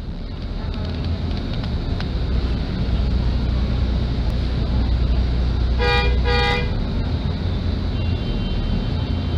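Hino RK8 R260 bus's diesel engine running with a steady low rumble, heard from inside the cabin. About six seconds in, a horn gives two short toots.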